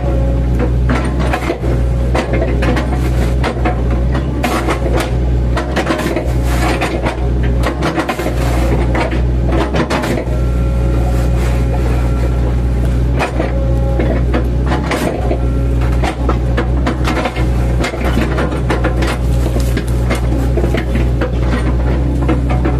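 Mini excavator's diesel engine running steadily under load, with frequent irregular knocks and cracks as the machine chips felled oil palm trunks.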